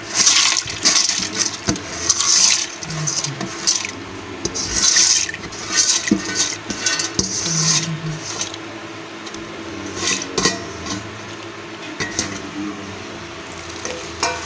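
Hand swishing and rubbing whole masoor lentils in water in a steel pot to wash them: repeated watery swishes for about the first half, then lighter scattered clicks of grains against the steel.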